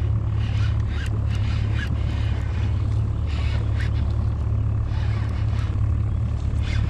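A boat motor running steadily with a low hum, with faint scattered ticks from a baitcasting reel being cranked as a hooked fish is reeled in.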